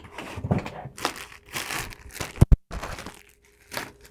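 Crinkling and rustling as products and their packaging are rummaged through and handled, with two sharp knocks in quick succession a little past halfway.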